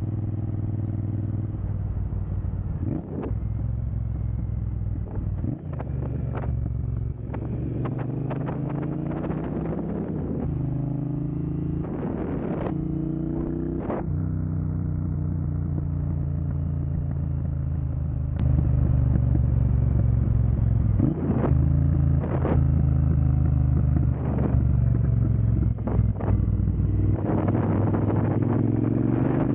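2022 Triumph Bonneville Speedmaster's 1200 cc parallel-twin engine running through an aftermarket Jekill & Hyde exhaust, a steady deep rumble with the revs climbing several times and dropping back. It gets louder about two thirds of the way through.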